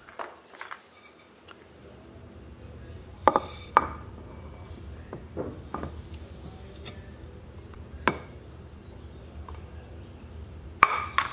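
A few sharp clinks and knocks of kitchen utensils against a stone mortar as toasted sesame seeds are emptied into it: a pair a few seconds in, one more later, and a loud cluster near the end, over a low steady hum.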